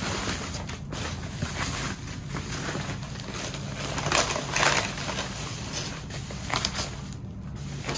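Tissue paper rustling and crinkling as a boot is pulled out of its shoe box, with a few louder crackles.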